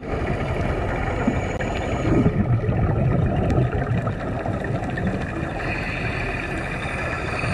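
A boat's engine running steadily at an even speed.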